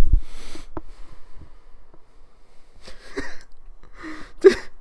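A man's breathing close to the microphone: short sniffs and sharp exhalations, the loudest near the end, after a low thump right at the start.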